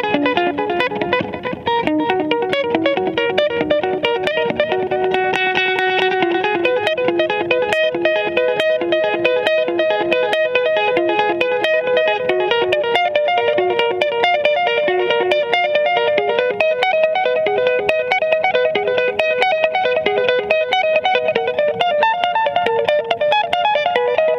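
Stratocaster-style electric guitar played through effects in a fast instrumental passage of quickly changing notes, with a few longer held notes about five seconds in.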